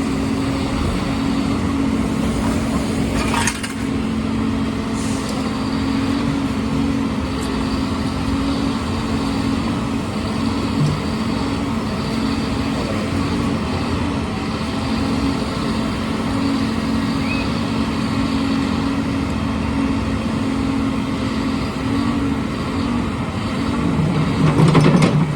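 Heavy engine machinery running steadily at a construction site, with a constant low hum and street noise. There is a short noisy burst about three seconds in and a louder surge near the end.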